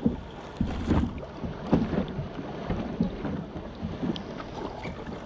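Double-bladed kayak paddle dipping and splashing in the sea, strokes coming roughly every second, with water washing against the plastic hull.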